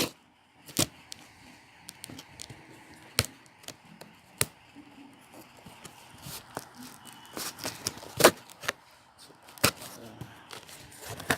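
Scattered sharp clicks and knocks of a cardboard package being handled and opened by hand, about a dozen irregular taps with quieter rustling between them.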